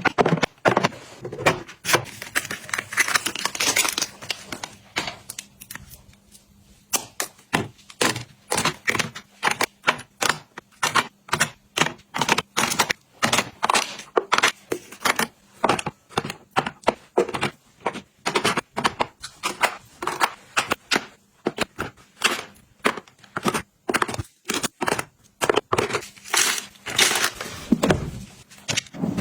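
Rapid, irregular clicks, taps and knocks of small items being handled and set down during restocking and organizing, with stretches of rustling or scraping.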